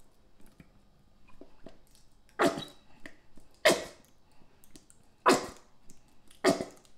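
Nearly empty plastic barbecue sauce squeeze bottle held upside down and squeezed, spluttering out air and sauce in four short bursts a little over a second apart.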